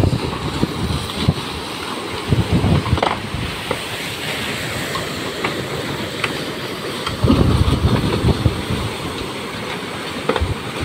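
Surf breaking over a stranded fishing boat's hull and against the concrete breakwater blocks, a continuous rushing wash with heavy surges, the biggest about seven seconds in. Scattered sharp knocks are mixed in, and wind rumbles on the microphone.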